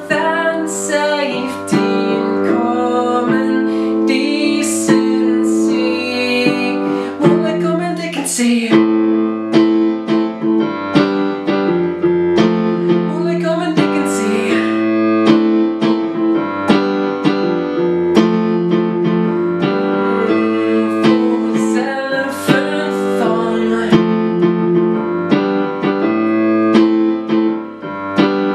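Electric keyboard played with a piano sound: steady chords and a melody, with a man singing over it in places.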